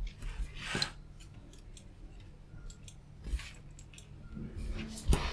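Hands stripping the outer plastic jacket off a multicore cable: short rasping cuts and clicks from the tool. The loudest is a sharp click near the end.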